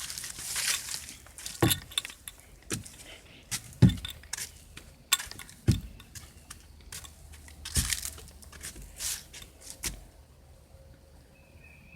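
A hiker scrambling under a fallen tree across the trail: irregular crunches, knocks and thumps of steps and bodily contact, with rustling at the start. It goes quiet about ten seconds in.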